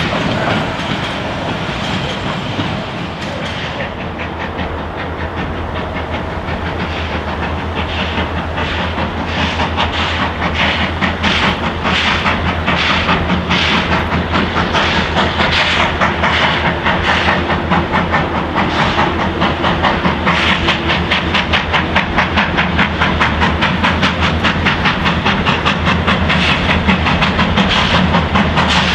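Baldwin-built 2-6-2 steam locomotive No. 12 working steam toward the listener, its exhaust beating in a quick, even rhythm that grows steadily louder as it approaches.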